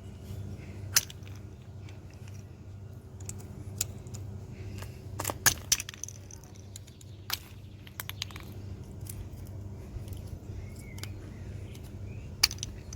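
Sharp plastic clicks and small knocks, a few at a time and a second or more apart, as the plastic wheel-bolt caps of a Volkswagen Polo are pulled off with the cap-puller tool. A steady low hum runs underneath.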